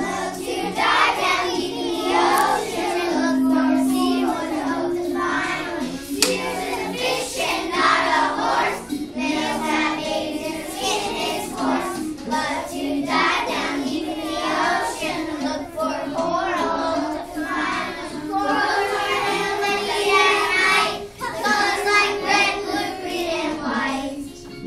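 A group of young children singing a song together in unison, over a steady instrumental accompaniment.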